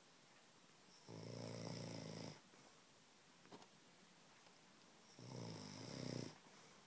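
Snoring during sleep: two snores about four seconds apart, each lasting a little over a second.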